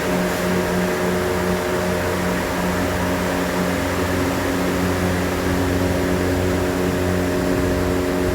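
A motor running steadily, a constant hum that holds the same pitch throughout.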